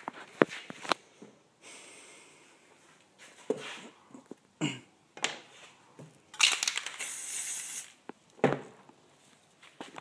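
Aerosol spray paint can hissing in a burst of about a second and a half past the middle, with a fainter, shorter burst earlier on. Sharp knocks and clatters of cans and tools being handled and set down come in between.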